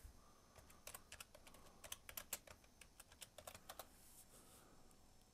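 Faint typing on a computer keyboard: a quick run of keystrokes starting about a second in and stopping just before four seconds.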